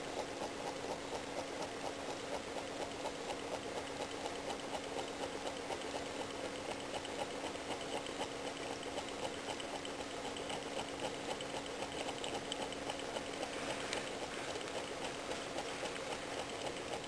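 Homemade mug-top Stirling engine with a CD flywheel running, making a steady, rapid, even mechanical ticking.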